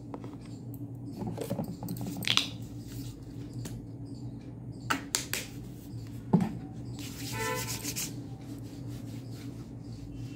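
Hands rubbing together and patting the face, with a few sharp clicks and a louder rasping rub about seven seconds in, over the steady low hum of a ceiling fan.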